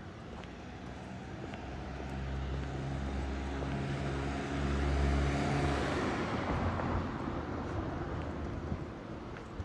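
Railway train passing through the station: a low, steady hum with rumble that grows louder, peaks about halfway through, then fades away.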